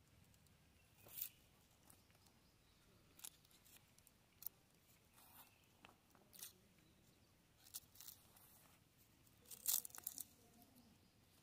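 A knife peeling and cutting a red onion in the hand: faint, scattered crackles and crunches a second or so apart, the loudest cluster near the end.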